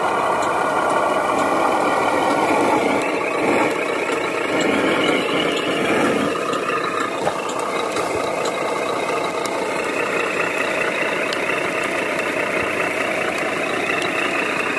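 1/14-scale radio-controlled Mercedes-Benz 2638 log truck driving slowly, giving a steady mechanical running sound with rattling.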